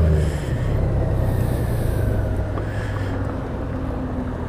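Honda Gold Wing's flat-six engine running under way with road and wind noise, the engine pulling hard at first and easing off after about a second, the sound falling off gradually after that.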